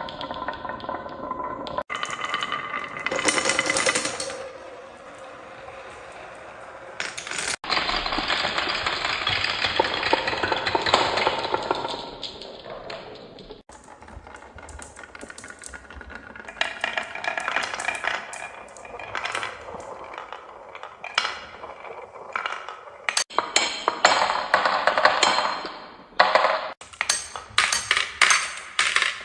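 Marbles rolling and clattering down a marble run track, with rapid clicks and clinks as they knock against the track and each other. The sound breaks off abruptly several times between stretches.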